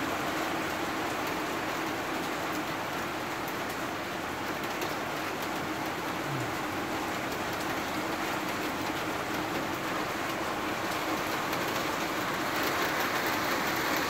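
Steady rain falling in a garden, an even hiss, with a low steady hum beneath it; the rain grows a little louder near the end.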